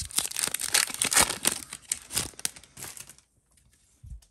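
Basketball card pack's wrapper being torn open and crinkled by hand: a dense run of crackling that stops about three seconds in, followed by a soft low thump near the end.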